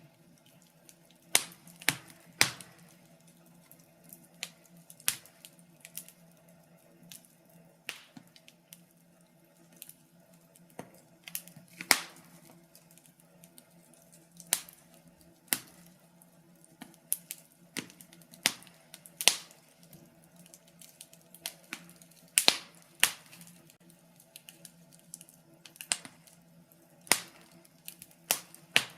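Wood fire in a fireplace crackling: irregular sharp pops and snaps, sometimes in quick clusters, sometimes a second or two apart, over a faint steady low hum.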